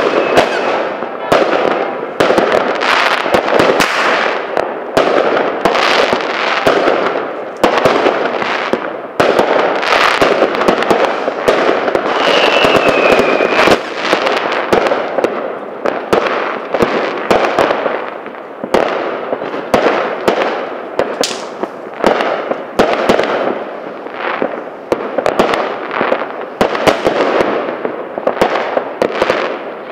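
Fireworks and firecrackers going off in a dense, continuous barrage of overlapping bangs, with a brief falling whistle a little before the middle.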